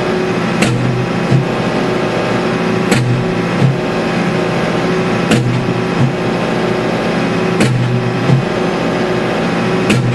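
Danuser Hammer hydraulic post driver striking a wooden fence post, five blows about every two and a half seconds, each followed shortly by a lighter knock. The tractor's engine runs steadily under it all, heard from inside the cab.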